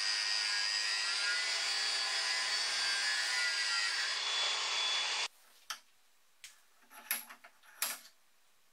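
Makita brushless angle grinder with a thin cut-off disc cutting through a steel lag screw, a steady high grinding whine that stops suddenly about five seconds in. A few light clicks of the small cut pieces being handled follow.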